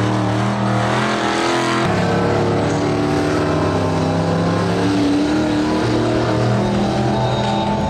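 Engines of several stripped-down racing combine harvesters running as they race over a dirt track. The engine pitch steps to a new level about two seconds in and again near six seconds.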